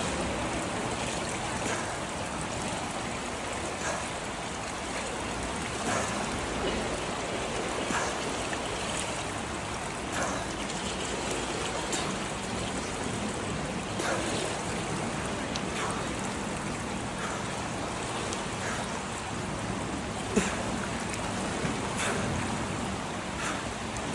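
Water splashing and sloshing around a swimmer doing weighted treading water with an eggbeater kick, over a steady wash of pool water noise. Small splashes come about every two seconds, with one sharper splash near the end.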